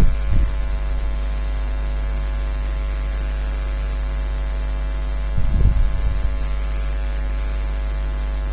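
Steady electrical mains hum with faint hiss in the microphone line. A brief low noise about five and a half seconds in.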